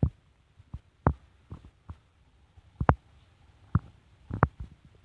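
A handful of irregular dull knocks and thumps while water is poured from a metal saucepan into a slow cooker's crock, with only faint sound between them.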